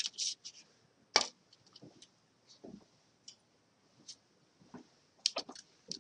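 Scattered light clicks and taps of small lab items being handled at an electronic balance, with one sharper click a little over a second in and a quick cluster of clicks near the end.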